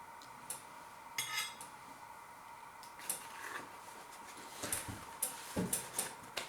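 Cutlery clinking and scraping against a dish in a series of light, irregular knocks, with a short rattle about a second in and the clinks coming thicker near the end.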